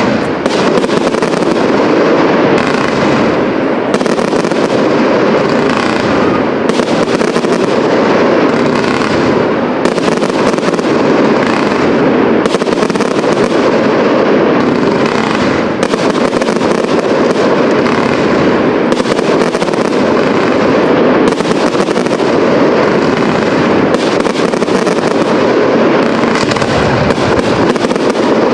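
Professional fireworks display: a continuous, dense barrage of aerial shell bursts and crackling, the bangs following one another with no pause.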